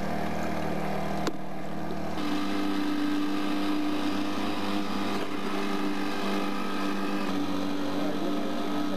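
Boat engine running steadily, heard from aboard, its tone shifting about two seconds in.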